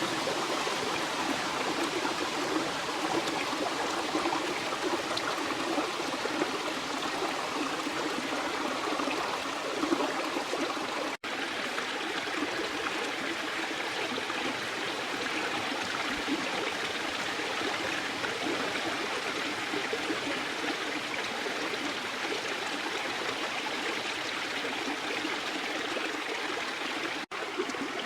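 Steady rush of a flowing stream or river. The sound cuts out for an instant twice: about eleven seconds in and near the end.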